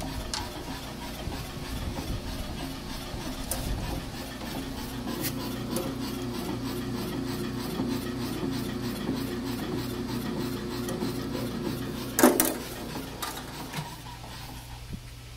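Hitachi Super Surfacer PF110F fixed-knife planer running, its feed belt and drive giving a steady hum with faint, evenly spaced ticks. A single loud knock comes about twelve seconds in, and shortly after, the running sound falls away to a lower steady hum.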